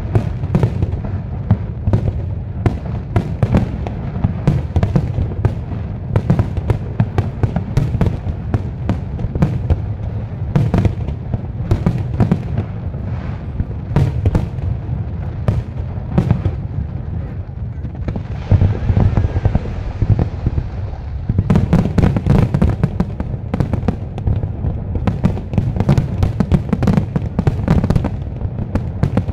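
Large professional fireworks display: rapid, continuous volleys of shell launches and bursts booming over one another. About two-thirds of the way in, a steady hiss takes over for a few seconds before the dense banging resumes.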